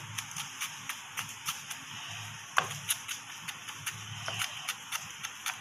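Chef's knife finely chopping garlic on a cutting board: quick, slightly uneven taps of the blade against the board, about three or four a second, with one louder knock about two and a half seconds in.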